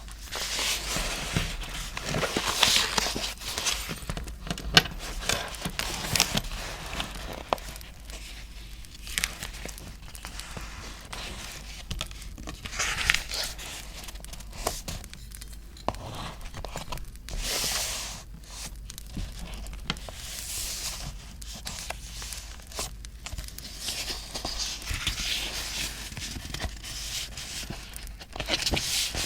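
Paper being handled, torn and crinkled in irregular swells, with scattered short clicks and taps.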